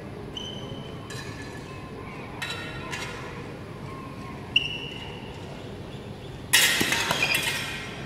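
Sparring swords clashing against each other and against a metal buckler: a few scattered clinks with a short metallic ring, then, about three-quarters of the way in, a loud rapid flurry of clashes lasting about a second.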